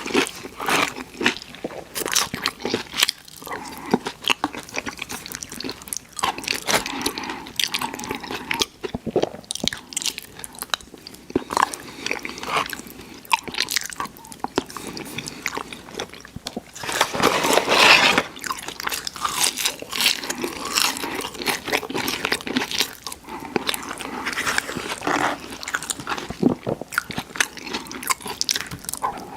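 Close-miked eating sounds: crispy fried chicken crunching between the teeth in quick, irregular crackles, with wet chewing between bites. A louder run of crunching comes a little past the middle.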